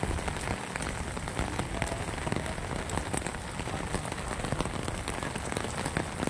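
Steady rain falling on wet stone paving and grass: an even hiss made of many small drop splashes.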